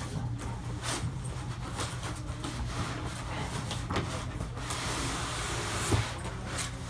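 Styrofoam end caps and the cardboard box rubbing and scraping as a large flat-screen TV is worked out of its packaging. Scattered knocks are heard, then a longer scrape near the end that finishes in a sharp knock, all over a steady low hum.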